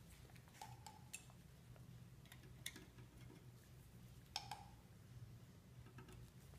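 Faint scattered clicks and two brief light clinks as small hand tools are handled and set against a work surface, over a low steady hum.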